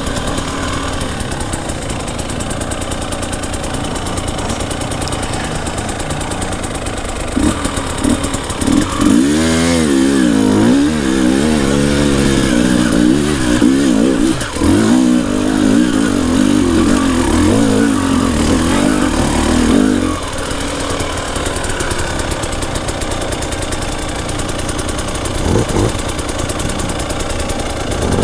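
Two-stroke single-cylinder engine of a 2018 KTM 300 TPI dirt bike, running steadily. From about seven seconds in, its revs rise and fall rapidly and repeatedly for over ten seconds as the throttle is worked. It then settles to a steadier, lower note, with a couple of short blips near the end.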